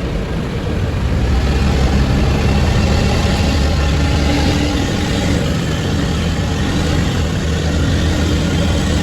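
Heavy vehicle's diesel engine running steadily, growing louder about a second in.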